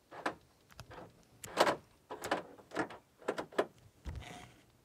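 A vehicle's rear door handle and latch being tried, a string of irregular sharp clicks and clunks, the loudest about a second and a half in; the door is locked.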